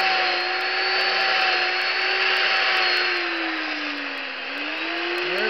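Two-stroke chainsaw running at high revs while cutting into a wood block. About three seconds in, its pitch sags and it gets slightly quieter for about a second as the cut loads the engine, then it climbs back to full speed.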